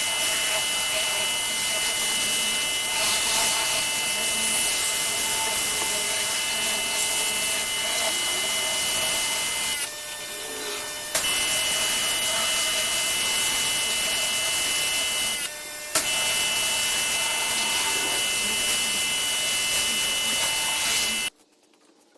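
Pressure washer running and spraying: a steady hissing rush with a high whine, dipping briefly twice, then cutting off suddenly near the end.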